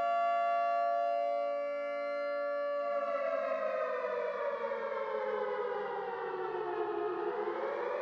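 Civil-defense-style curfew siren sounding over the town. It holds one steady tone for about three seconds, then slides slowly down in pitch and begins to rise again near the end.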